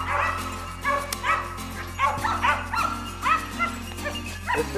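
A pack of boar-hunting hounds yelping and baying on the drive, several short high yelps a second, over background music with steady held chords.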